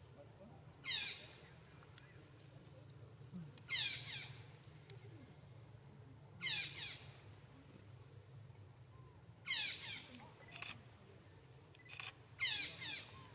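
Five short, high animal calls, each falling steeply in pitch, repeated about every three seconds.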